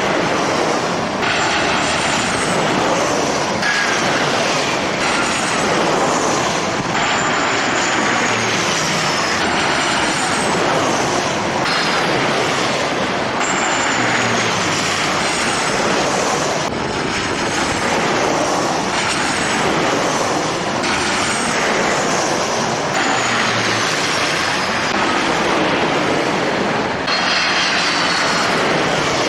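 Jet airliner engine noise, loud and continuous, with strong wind on the microphone; thin high whines slide downward in pitch every few seconds.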